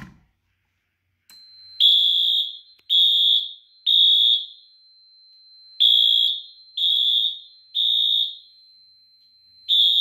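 Wheelock AS-24MCW-FR fire alarm horn strobe sounding the temporal code-3 evacuation pattern: three short high-pitched blasts, a pause, three more, and the next set starting near the end. A faint steady high tone runs underneath.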